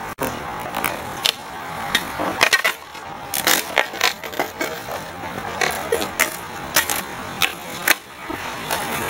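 Skateboard on concrete: wheels rolling with a string of irregular sharp clacks and slaps from the board popping and landing.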